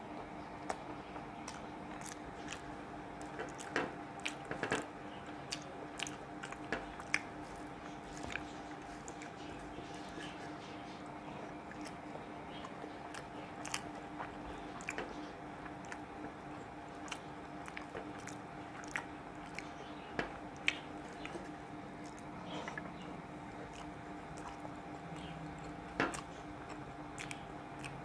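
Eating with the hand: fingers squishing and mixing rice on a plate, and chewing with many short wet mouth clicks, over a steady low hum.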